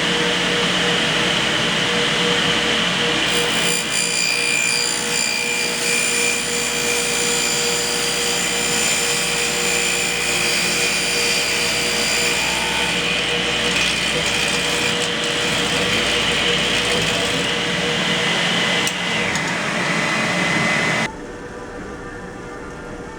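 Power tool cutting or grinding steel bar stock, running steadily as it machines the metal. It stops abruptly near the end, leaving a much quieter steady background.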